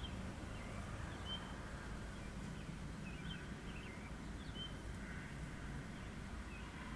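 Birds giving short, scattered chirps over a faint, steady low outdoor rumble.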